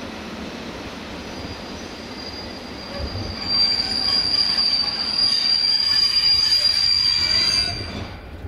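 Steel wheels of a slowly shunted train of loaded car-transport wagons squealing on the rails. A high, steady squeal sets in about a second and a half in, grows loud about three and a half seconds in, and cuts off near the end, over a low rolling rumble.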